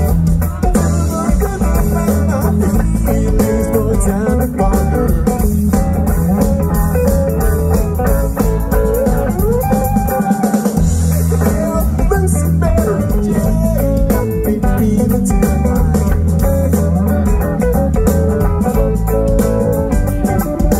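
A rock band playing live: electric guitar lines over bass guitar and a drum kit.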